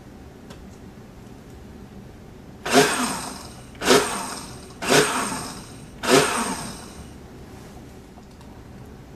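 Hamilton Beach Power Elite blender pulsed four times, about a second apart, beginning a little under three seconds in: each press starts the motor and blades churning suddenly, then they spin down. The short pulses stir mix-ins into a milky drink.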